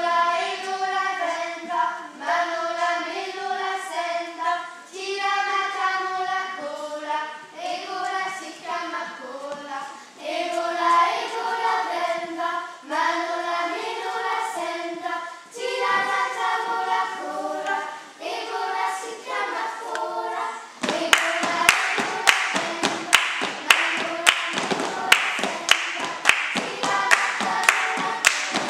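A group of young girls' voices singing together unaccompanied. After about twenty seconds hand clapping joins in a brisk steady beat, about three claps a second, under the singing, which is then louder.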